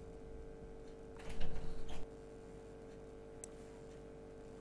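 Handling noises at a computer desk: a short rustle about a second in, then a single sharp click of the mouse, over a steady electrical hum.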